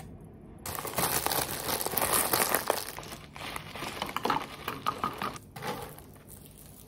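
Thin clear plastic bag crinkling as it is handled and scrunched. It starts abruptly under a second in, with a run of sharper crackles a little past the middle, and dies away near the end.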